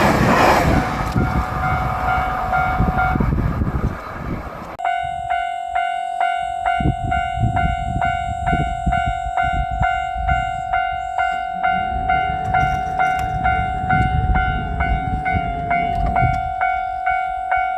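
A passing train's rumble dies away over the first few seconds. Then a Japanese level-crossing warning bell rings steadily, a bright ringing tone struck about twice a second, over a low rumble.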